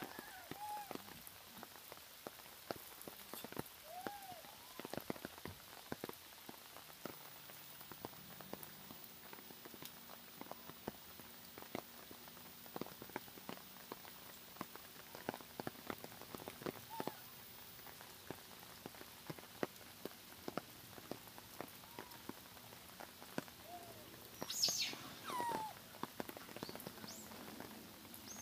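Rain dripping and pattering in scattered, irregular ticks, with a few short rising-and-falling calls from macaques and one louder call near the end.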